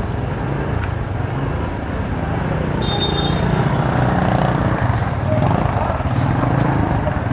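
Motorcycle engine running at low speed in slow street traffic, a steady low hum.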